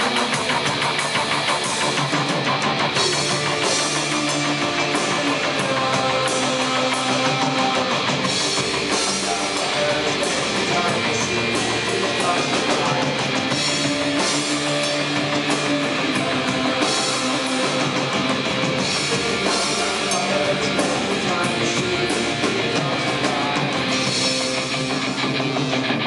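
Live industrial rock band playing a song loudly: a drum kit with guitar and keyboard synthesizers, running steadily throughout.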